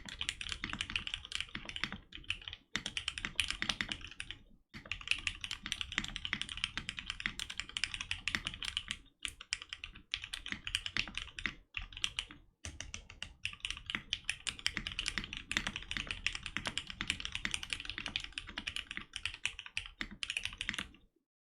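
Fast, continuous typing on a plateless mechanical keyboard with linear Cherry MX Black switches (retooled), with a few brief pauses; stops just before the end.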